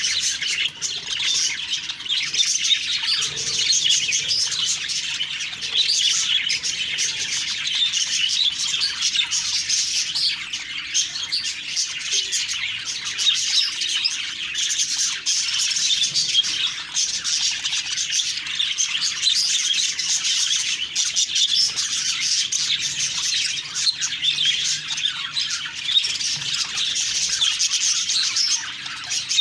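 Budgerigars chattering and warbling: a dense, unbroken stream of high chirps and squawks overlapping one another.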